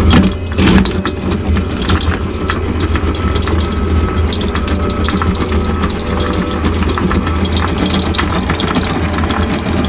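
Electric anchor windlass running steadily as the anchor is lowered, its motor humming and the chain rattling link by link over the gypsy.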